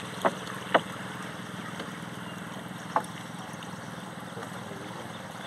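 A wooden boat on a river while a fishing net is handled over its side: a steady wash of water and wind, with three sharp knocks, two close together near the start and one about three seconds in.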